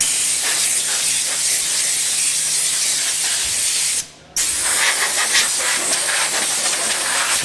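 Compressed-air blow gun releasing a steady hiss as it blows dust off machinery. The trigger is let go briefly a little after four seconds in, then squeezed again.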